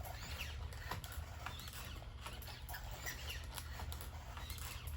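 Robot dog's leg joints and servo motors moving, with many short clicks, whirring and little rising squeaks. The joints sound crunchy, a grinding that the hip repair has not cured.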